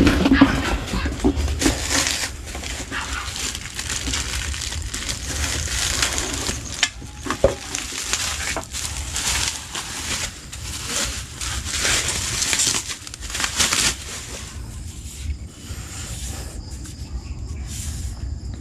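Handling noise: irregular crinkling and rustling with scattered light knocks.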